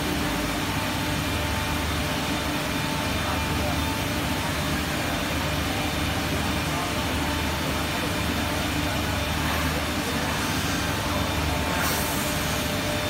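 Five-axis CNC wood router running steadily, a constant hum with several steady whining tones. A short hiss comes near the end.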